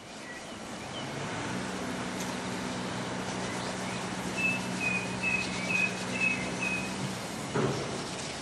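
Steady hiss and low hum of a steam locomotive standing in steam, with a bird chirping a string of short high notes midway through and a single knock near the end.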